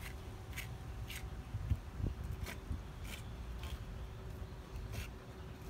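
Knife blade scraping and slicing raw iguana meat off the thigh bone in short strokes, with a dull knock or two about two seconds in.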